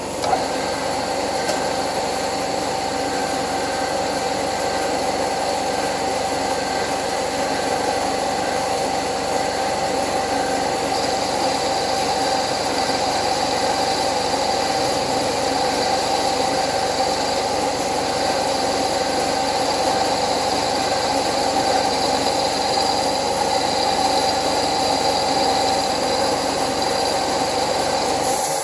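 Milling machine with a right-angle head running a boring head that cuts into the side of a model locomotive's boiler shell. A steady machine whine with cutting noise runs throughout, and it cuts off sharply at the end.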